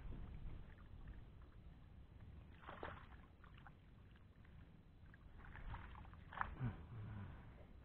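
Faint water sloshing and small splashes as a landing net is dipped into the lake beside a wooden boat. There is a brief burst a little under three seconds in, and a livelier stretch of splashing with two sharp knocks about six and a half seconds in.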